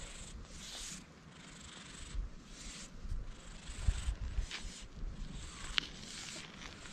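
Soft rustling of a hand stroking and rubbing an orange cat's head and fur close to the microphone, with a few low bumps and one short sharp click near the end.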